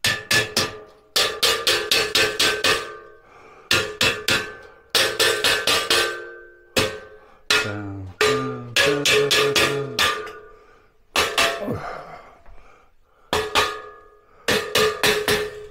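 Mallet blows knocking the top beams of a black steel boltless shelving frame down into its uprights, in about ten bursts of quick strikes. The steel frame rings after each blow. The beams are being seated to fit the top of the unit.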